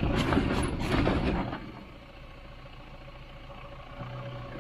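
Off-road vehicle's engine running on a rough trail, with loud clattering and knocking over the first second and a half, then dropping to a quieter steady running.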